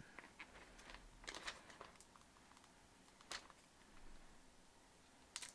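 Near silence, with a few faint taps and rustles from hands handling a Barnes & Noble Nook Tablet and its plastic film as it is turned over.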